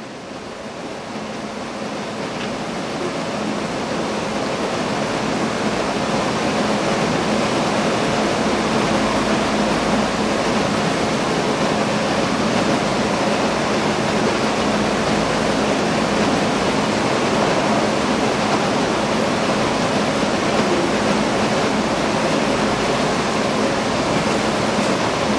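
Steady rushing air of a large pedestal fan blowing, with a faint low hum under it. It fades up over the first few seconds, then holds steady.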